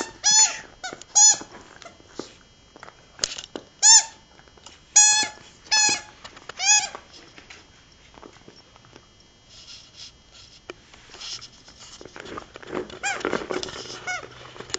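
A squeaky dog toy being squeezed, about seven short squeaks, each rising and falling in pitch, over the first seven seconds, then quieter scuffling as the terrier puppies play with it.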